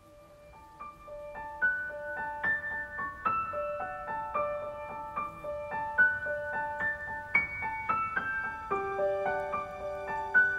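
Background music: a gentle piano tune of struck notes with chords sounding under them, fading in over the first second.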